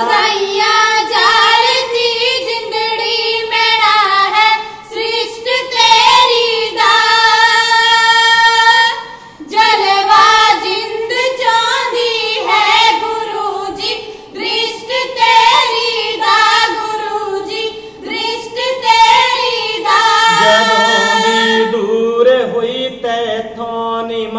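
Three women singing a Sikh kavishri verse together in high voices, with long held notes and a short break about nine and a half seconds in.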